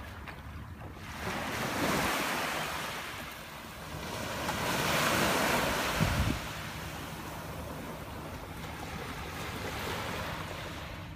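Small waves breaking and washing up a sandy shore, swelling twice about three seconds apart, with a gentler wash near the end.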